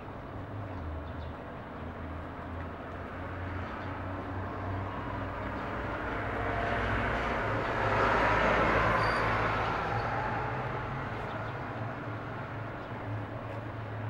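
A passing vehicle whose noise swells to a peak about eight seconds in and then fades away, over a steady low hum.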